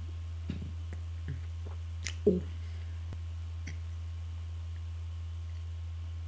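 Faint mouth and handling noises of someone drinking close to a microphone: a few soft clicks and one louder knock about two seconds in, over a steady low electrical hum.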